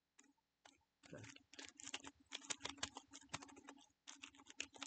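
Computer keyboard typing: a fast run of keystroke clicks starting about a second in, with a brief pause near the end.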